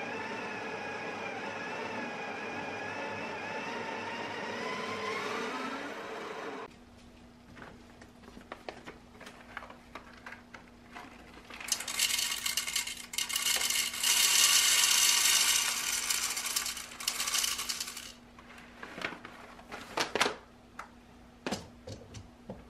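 Breville Barista Express Impress (BES876) espresso machine running water through its group head: a steady pump hum with a tone that rises near the end, stopping suddenly about 7 s in. Later, coffee beans are poured into the machine's grinder hopper as a loud rattling clatter lasting about six seconds, followed by a few clicks as the plastic hopper lid goes on.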